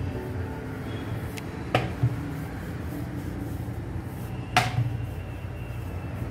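Wooden rolling pin working a sheet of dough on a wooden rolling board, with a couple of sharp wood-on-wood knocks, the loudest about four and a half seconds in, over a steady low hum.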